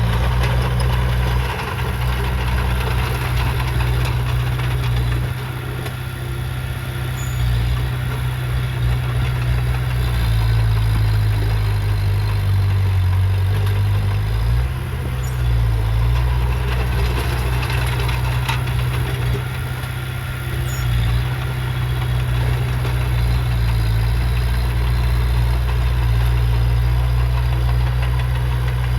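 Heavy diesel engine of earthmoving machinery running with a deep steady rumble, its pitch dipping lower about halfway through and then coming back up.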